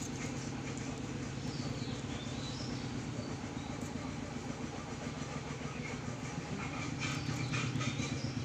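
An engine running steadily with a low drone, a little louder near the end.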